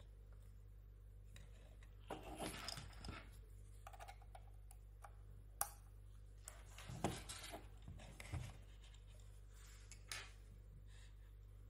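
Handling noise on a small metal control box: a thin tool scraping into a hole in its side and fingers rubbing, with sharp single clicks about halfway through and again near the end, over a low steady electrical hum.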